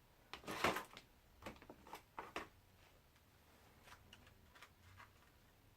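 Rummaging through craft supplies: light clicks and rustles of things being moved, busiest in the first second, then a few separate clicks and fainter handling.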